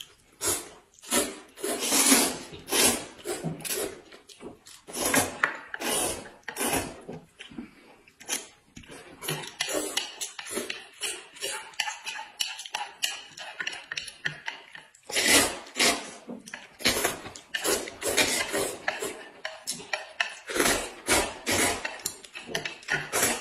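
Two people slurping noodles and eating in a quick, irregular run of short, sharp slurps, with chopsticks and ceramic plates knocking now and then.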